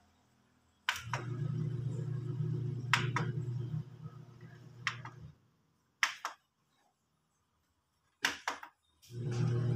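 About five sharp button clicks on a Sony Shake-X10D mini hi-fi system's control panel. A low steady hum starts with the first click, stops about five seconds in, and comes back near the end.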